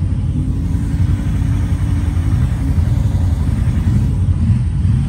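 Side-by-side UTV engine running as the machine drives past through mud, a steady low rumble.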